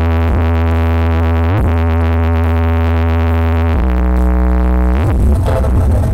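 A truck-mounted carnival sound-system speaker stack playing a very loud, deep synthesized bass tone. The notes are held for a second or more, with quick upward slides between them. About five seconds in it breaks into a busier, rougher mix.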